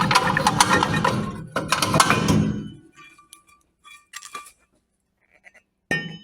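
Harsh metallic grinding for about two and a half seconds, breaking off briefly midway, then a few light metallic clinks, and a short burst of grinding again near the end.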